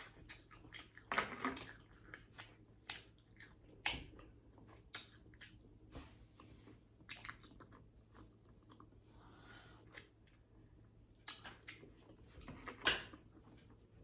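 A person chewing snow crab from a seafood boil, with scattered small clicks and crunches of shell; slightly louder clusters come about a second in, around four seconds, and near the end.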